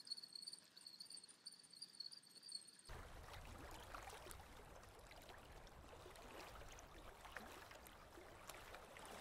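Faint, steady high whine from a fishing reel as the line is wound in. About three seconds in it gives way to faint water lapping, an even wash with small ticks.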